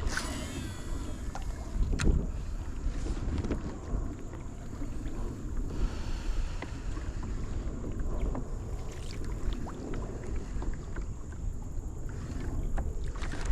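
Wind buffeting the microphone over water sounds around a fishing kayak, with a few short knocks, one about two seconds in.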